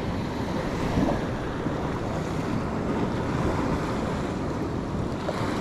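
Ocean surf washing around a kayak near rocks, with wind buffeting the microphone: a steady, rushing noise.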